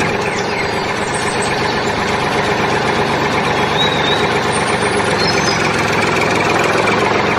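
A small engine or motor running steadily, with a few faint high chirps about halfway through.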